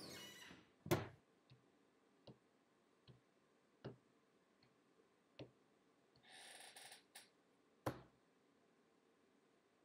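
A sharp knock about a second in, likely a kitchen cupboard door being shut, then slow footsteps on a hard floor, about one every 0.8 s. Near the end comes a short hissing scrape and then a heavier thump as arms and head drop onto a table.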